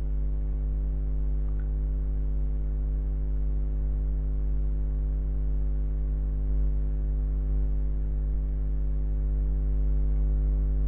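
Steady electrical mains hum: a low drone with a buzzy stack of higher hum tones, unchanging throughout.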